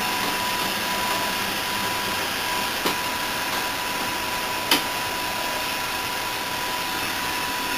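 Xerox Acolor 935 colour photocopier running a copy cycle: a steady mechanical hum with a thin, steady high tone. Two sharp clicks come about three and about five seconds in.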